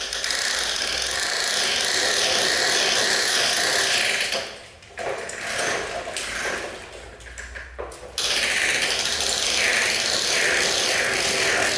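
Plastic wheels of a large toy dump truck rolling and rattling across a tiled floor as it is pushed: a steady grinding rattle. It drops away for a few seconds near the middle and comes back strongly about eight seconds in.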